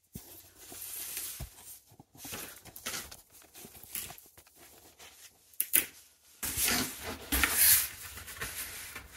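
Scattered knocks and rustles as a phone is set on a stand, then from about six and a half seconds in a louder, steadier rustling and scraping of a flat corrugated cardboard package being handled and its tape picked at.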